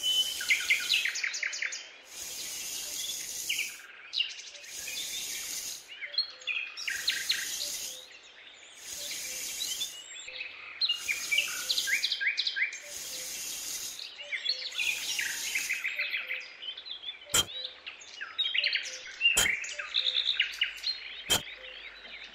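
Small hand rake scraping through loose sand in about eight even strokes, roughly one every two seconds, over birds chirping and singing. After the strokes stop, a few sharp clicks.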